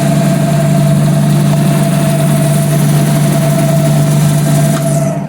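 Indiel AVI 128 alternator spun up on a belt-driven test bench, running steadily with a low hum and a constant whine, then shut off near the end. The alternator turns heavily under load, a sign that the drive belt needs more tension.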